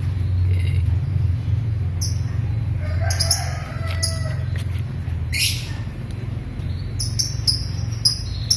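Birds chirping in short high calls, repeating more often near the end, over a steady low hum. A brief pitched call comes about three seconds in, and a short hiss about five seconds in.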